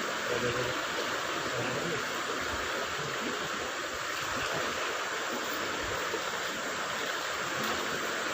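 Steady rushing of flowing river water, an even hiss without breaks.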